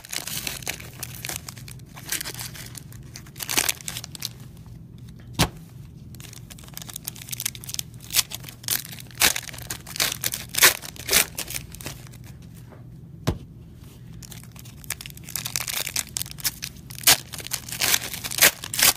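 Donruss Optic baseball card packs being opened: the packs' foil wrappers crinkling and tearing, with irregular sharp clicks as the cards are handled and set down on a stack.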